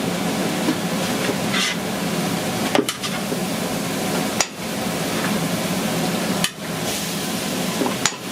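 Steady hiss of kitchen noise, likely food sizzling on a grill, with occasional knocks and clatter of utensils. The sound drops out briefly a few times.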